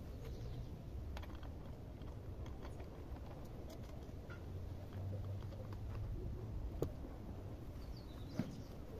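Faint, scattered small metal clicks and taps as a disc and flange nut are fitted by hand onto an angle grinder's spindle, with a couple of sharper clicks in the last few seconds. Birds chirp faintly.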